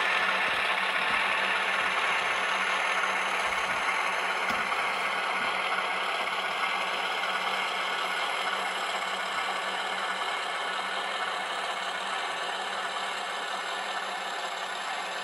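Recorded diesel engine sound from an HO scale E8A model's LokSound 5 sound decoder, played through the model's small onboard speakers: a steady engine drone with a rattling edge, slowly getting quieter over the stretch.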